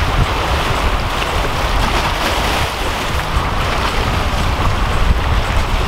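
Wind buffeting the microphone in a steady low rumble, over the hiss of small waves washing against shoreline rocks.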